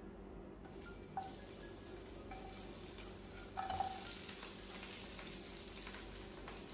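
Faint, steady sizzle of food frying in a pot on a gas stove, the frying stage at the start of cooking ghee rice.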